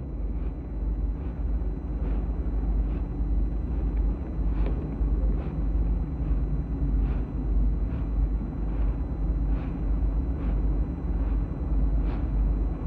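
Steady low rumble and hiss of an old archival recording, with a faint click repeating about every 0.8 seconds.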